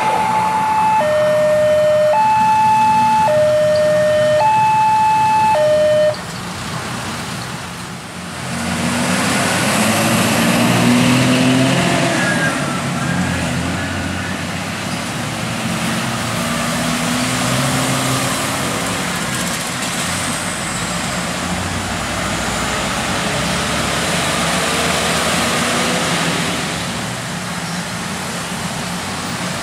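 Level-crossing warning alarm sounding a two-tone signal, alternating high and low about once a second, that cuts off suddenly about six seconds in as the train has cleared the crossing. Then road traffic, mostly motorcycles and cars, pulls away over the crossing with engines rising in pitch.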